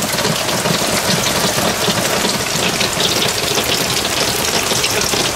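Heavy thunderstorm downpour: rain pouring hard and steadily with an even, loud hiss.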